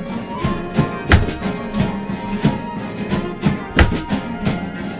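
Acoustic folk band playing an instrumental passage without vocals: strummed nylon-string classical guitars with flute and trumpet lines over them.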